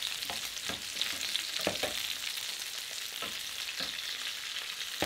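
Flour-dusted veal sweetbreads pan-frying over medium-high heat: a steady sizzle with scattered pops and crackles.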